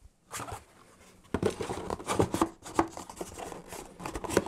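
Cardboard scraping and knocking as a cardboard insert is pushed back into a small product box, starting about a second in, with a sharp tap near the end.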